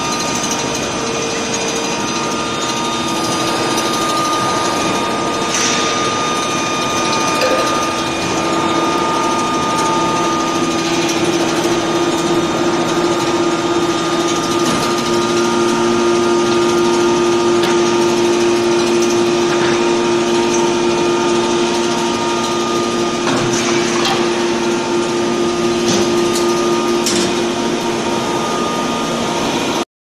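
Steady hum and whine of an aluminium bar induction heating line running: several steady tones over general machinery noise, with a few short clacks along the way.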